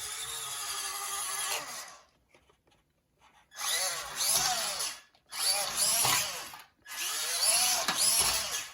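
Small electric motor whirring in bursts: one steady run of about two seconds, then, after a pause, three short bursts that each rise and fall in pitch.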